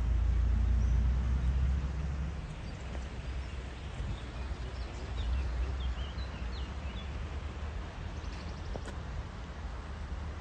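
Outdoor ambience: wind rumbling on the microphone for the first couple of seconds, then easing to a steady hiss with a few short, high bird chirps in the middle.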